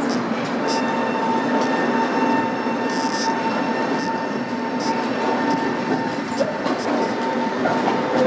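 A tram running along street rails, heard from inside the car: a steady rolling rumble with a steady high whine, and a few short high hisses from the wheels on the track.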